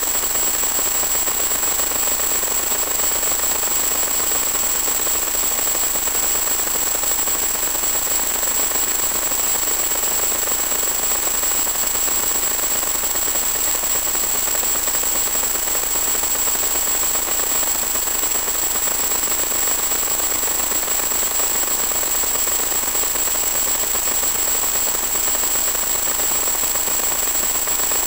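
Steady, unchanging hiss with a constant high-pitched tone on top, the static of an analog 1.2 GHz FPV video link's audio channel.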